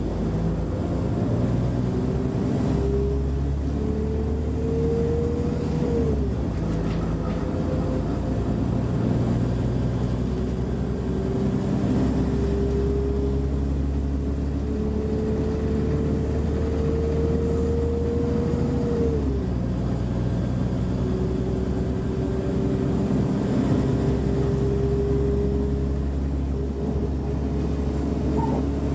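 Interior sound of a Class 172 Turbostar diesel multiple unit accelerating: a drone from the underfloor diesel engine with a drivetrain whine that climbs steadily in pitch. The whine drops sharply twice, about six seconds in and again near nineteen seconds, as the transmission changes up a gear, then starts climbing again.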